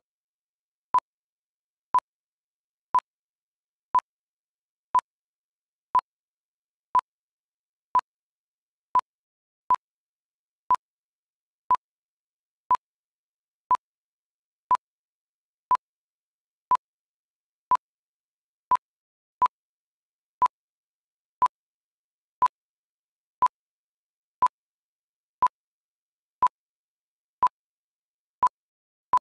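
Countdown timer's sound effect: a short, mid-pitched electronic beep once every second, evenly spaced, with silence between, marking each second counted down.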